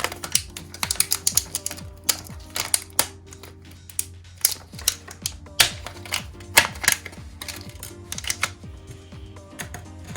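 Irregular clicking and light rattling of small plastic parts being handled, LEGO pieces and lighting-kit wires and connectors, with a few louder clicks in the middle, over quiet background music.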